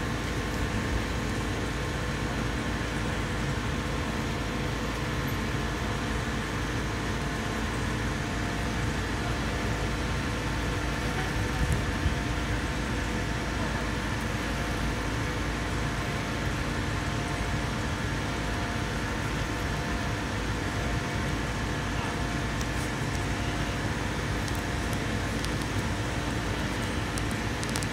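Liebherr 500-ton crane's diesel engine running steadily under load as it holds and lowers a large steel vessel, a constant drone with a low rumble and several steady tones.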